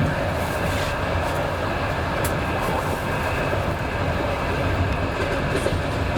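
Moving passenger train heard from inside the carriage: a steady rumble of wheels on rails, with a few light clicks.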